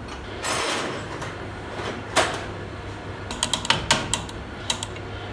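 Metal diesel injection pump parts and hand tools handled on a workbench: a short scrape soon after the start, a sharp clank about two seconds in, then a quick run of light metallic clicks and taps.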